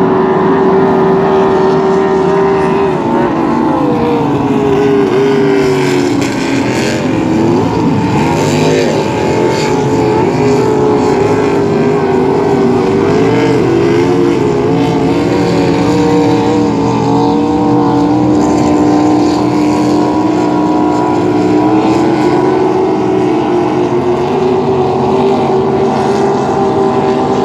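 Racing powerboat engines running at speed: a loud, continuous engine drone whose pitch wavers and shifts between about three and ten seconds in, then holds steadier.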